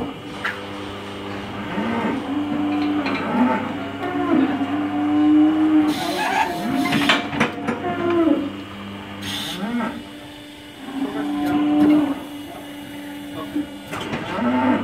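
Cow restrained in a hoof-trimming crush mooing repeatedly in long, low calls, over a steady low hum.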